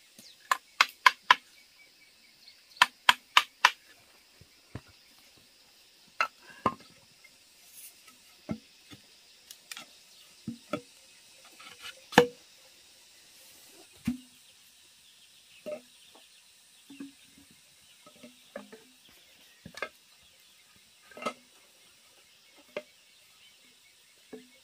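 Sharp knocks in two quick runs of four strikes near the start, then single knocks and clicks every second or two, the loudest about halfway through.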